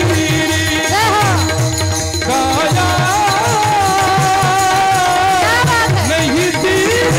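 Devotional kirtan music: a voice sings a melody, holding one long note through the middle, over a steady held drone tone and a regular beat of hand drums and small cymbals.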